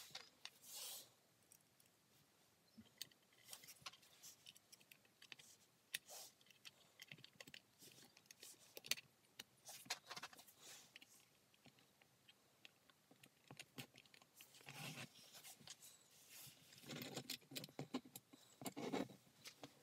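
Faint, scattered clicks and small metallic taps as the parts of a paper hole punch are handled and fitted together, with a denser run of handling noise from about fifteen seconds in.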